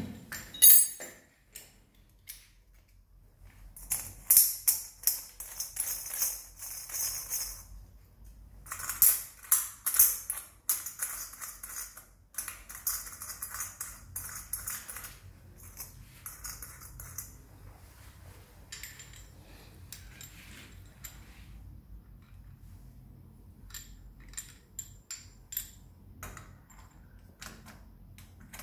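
Chrome cover flanges of a wall-mounted shower mixer clinking and rattling on the threaded eccentric connectors as they are spun on by hand, in two bursts of metallic jingling, then softer clicks and taps of metal fittings.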